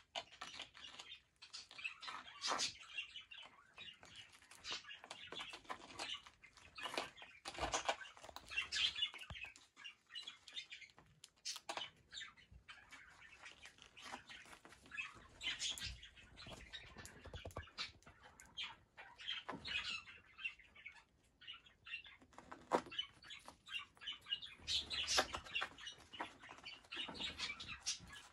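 Young cockatiels scratching and pecking in sand strewn with seashells: irregular rustling of sand and small clicks of shells and beaks, on and off.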